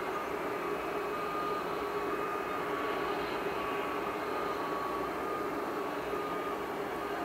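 Turbofan engines of a Lufthansa Embraer E-Jet (GE CF34-10E) at taxi power: a steady jet rush with a thin high whine that shifts slightly in pitch.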